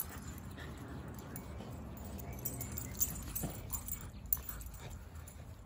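A Siberian husky and a yellow Labrador puppy tugging at a rope toy together, with dog play noises and a few short sharp sounds around the middle.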